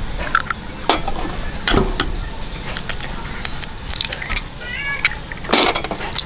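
Duck eggs being cracked one after another into a metal bowl: sharp shell cracks and taps at irregular intervals, with the wet drop of egg into the bowl.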